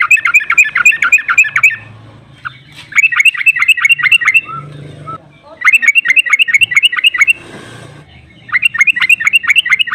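Yellow-vented bulbul (trucukan) singing its long rolling "ropel" song: four loud bursts of rapid chattering notes, each about a second and a half long, with short pauses between them.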